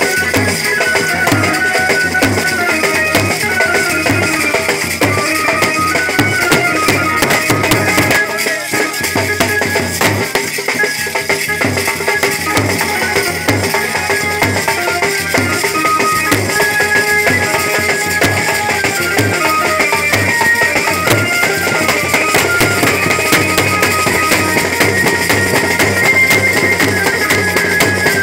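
Banjo baja band music: a melody in held, stepping notes on the Indian banjo over steady, dense drumming. The deepest drum strokes thin out for a moment a little over eight seconds in.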